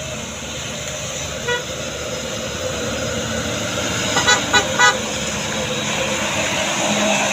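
Vehicle horn tooting: one short toot about a second and a half in, then a quick run of three or four toots about four seconds in, over a steady engine and road drone.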